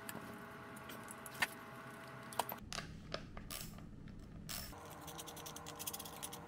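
Faint clicks and light rattles of small metal parts being handled while a chainsaw's carburetor and throttle linkage are fitted, over a faint steady hum.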